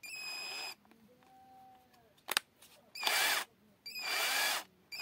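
Cordless drill run unloaded in three short trigger bursts, each a whir of the motor and gearbox, the second and third about half a second long and close together. There is a single sharp click between the first and second bursts.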